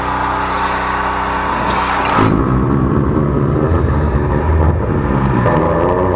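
A 13-horsepower high-pressure drain jetter runs steadily with a hiss over its engine. About two seconds in the hiss stops and the engine note turns deeper and more uneven.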